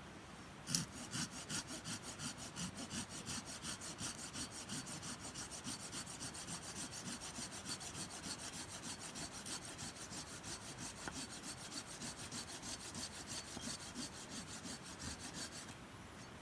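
Hand saw cutting through a piece of firewood in quick, even back-and-forth strokes, starting about a second in and stopping just before the end.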